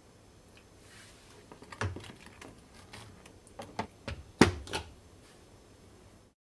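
A series of sharp clicks and knocks of kitchenware being handled, ending with a glass saucepan lid being set onto the pot: the loudest clink comes about four and a half seconds in, with a smaller one just after.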